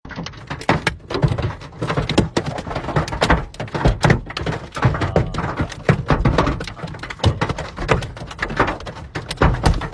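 Large hailstones drumming on a car's roof and windscreen, heard from inside the cabin: a dense, irregular stream of knocks and thuds.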